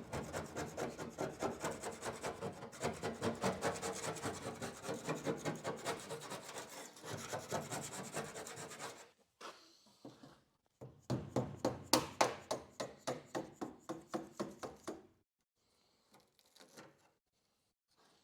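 Quick back-and-forth rubbing strokes by hand, about five a second, in a long run that stops about nine seconds in, then a second run of about four seconds, followed by a few faint scrapes.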